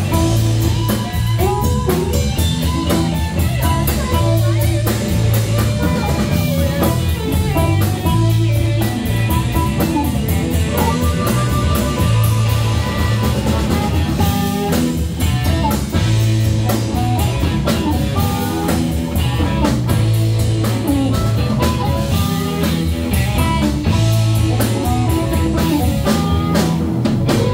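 Live blues band playing an instrumental stretch: electric guitar and harmonica over bass guitar and a drum kit, with a pulsing bass line.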